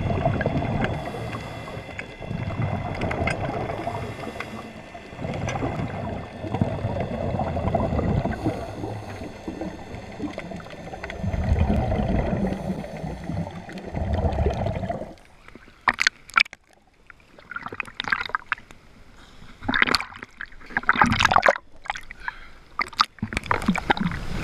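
Underwater, a scuba diver's exhaled bubbles rumble and gurgle in surges every few seconds. About fifteen seconds in the sound changes to irregular splashing and sloshing of water at the surface.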